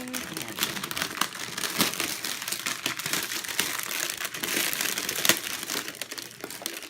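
Gift packaging being unwrapped by hand: wrapping crinkling and rustling continuously, with many small crackles.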